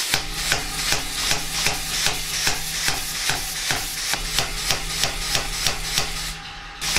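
Homemade pneumatic power hammer cycling on its own under an Arduino-timed air valve, the ram striking about two and a half times a second with air hiss and valve clicks between the blows, over a steady low hum. The blows stop briefly about six seconds in and then start again.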